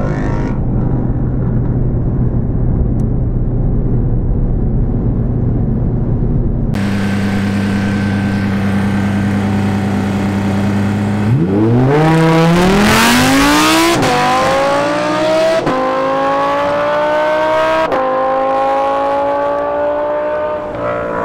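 Mercedes-AMG E63 S heard from inside the cabin, a steady engine drone with road noise at autobahn speed. After a sudden change about seven seconds in, a sports car idles, then launches about eleven seconds in and accelerates hard. Its engine note rises steeply and drops back at three upshifts.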